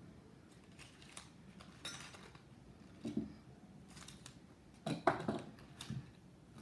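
Paper-scrap mini trees on metal ticket-stabber bases being picked up and set down on a tabletop: papery rustling and a few small knocks, the loudest cluster about five seconds in.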